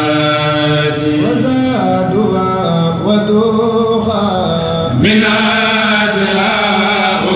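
A Mouride kourel, a group of men, chanting a xassida (Sufi devotional poem) unaccompanied, in long held notes with sliding ornaments. A new, brighter phrase starts about five seconds in.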